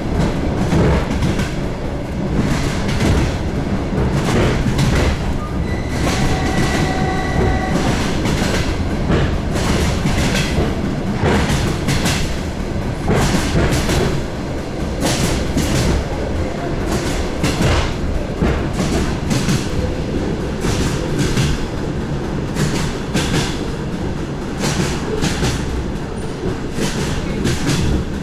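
DR1A diesel railcar train running along the line, heard from on board: wheels clattering over rail joints over a steady low rumble. A brief steady pitched tone sounds about six seconds in and lasts under two seconds.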